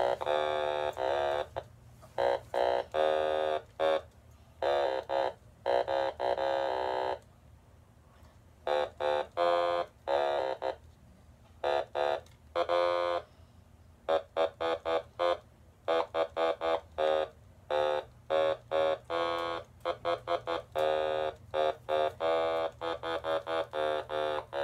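Otamatone played by hand: a tune of many short, pitched electronic notes, broken by a few pauses of about a second.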